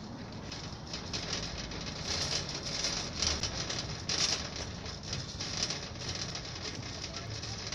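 Metal shopping cart rattling and its wheels rolling over wet concrete as it is pushed, a steady clattering hiss that grows louder in the middle.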